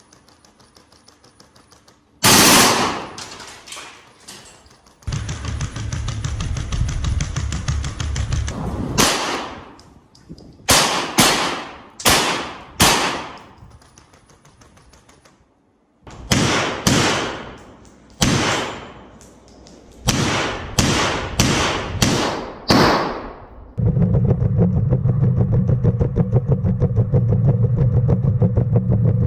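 Gunfire: loud single shots with long echoing tails, some in quick runs of about one or two a second, then a continuous rapid rattle near the end.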